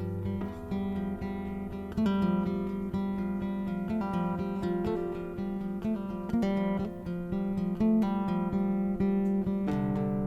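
Guitar playing plucked notes and chords that ring on over one another.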